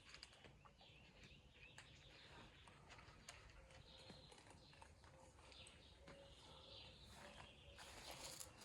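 Faint, irregular chewing and crunching of cats eating, a steady run of small clicks and ticks that grows busier near the end.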